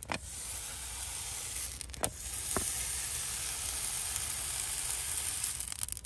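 A red-hot steel horseshoe sizzles steadily as it is pressed against a horse's hoof wall during hot fitting, the hoof horn burning where the shoe seats. There is a sharp click about two seconds in.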